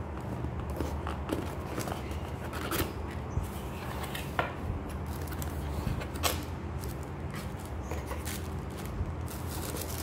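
Rigid cardboard gift box being opened by hand, its lid rubbing and tapping, then the tissue paper inside being handled, with scattered light clicks and ticks, the sharpest about six seconds in.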